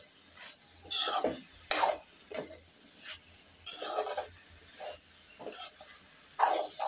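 A steel spoon scraping and stirring cabbage and potato around a metal wok, in irregular strokes roughly once a second.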